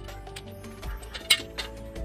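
Instrumental background music with a melody, over a few sharp metallic clinks, the loudest a little past halfway, from a screw and screwdriver being handled against a metal wall bracket.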